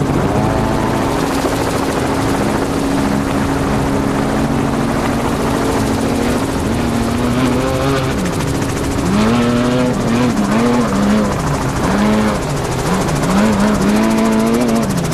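Helicopter running with a steady drone. From about halfway in, a desert race truck's engine is heard as well, its revs climbing and dropping again and again as it speeds over rough ground.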